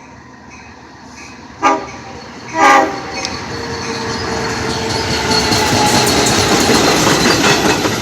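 DE30AC diesel-electric locomotive No. 402 sounding two short horn blasts about a second apart, the second slightly longer, then the passing train's running noise building steadily louder.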